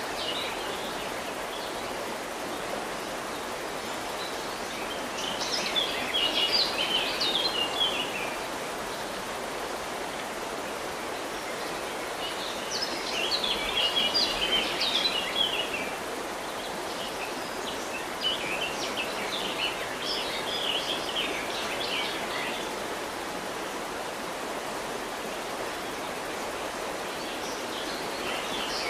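River water running steadily, with a songbird singing in bursts of rapid high chirps, four times over.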